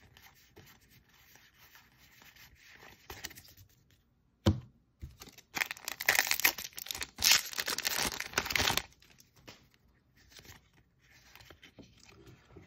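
Foil Magic: The Gathering booster pack wrapper being torn open and crinkled, loudest for about three seconds in the middle, just after a single sharp click. Soft rustle of cards being handled before and after.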